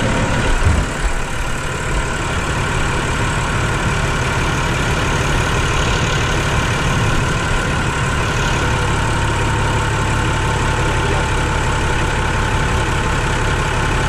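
Massey Ferguson 6170 tractor's diesel engine running steadily at idle, with a single knock about a second in.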